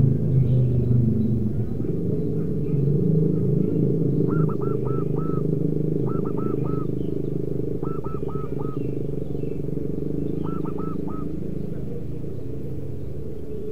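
Zebra dove cooing in four short bouts of three or four quick notes each, over a steady low rumble.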